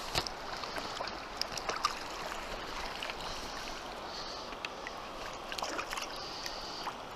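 Steady rush of shallow river water around the angler's legs, broken by short splashes and knocks as a small trout thrashes while being scooped into a landing net.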